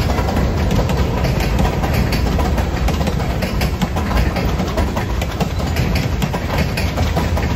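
Freight train cars, boxcars and then empty bulkhead flatcars, rolling past close by: a steady, loud rumble of steel wheels on rail with a quick run of clicks and clacks from the wheels.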